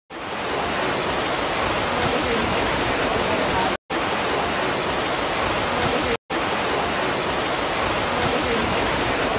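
Floodwater rushing down a flooded street after heavy rain: a loud, steady rush of water, cut off for an instant twice, about four and six seconds in.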